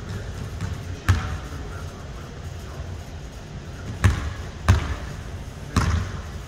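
Basketballs bouncing on a hardwood gym floor: about four separate thuds, one about a second in and three close together in the second half.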